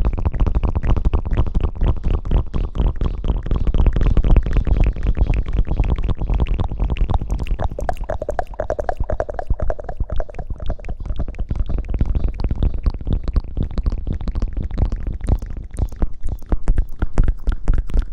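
Close-miked ASMR rustling and scrubbing: a dense, continuous crackle of quick irregular scratches with heavy low thumps as something is rubbed against or near the microphone.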